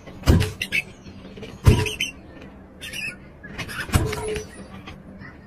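A pet pawing and pouncing at a tablet lying on a bed: three dull thumps, with short high squeaks between them.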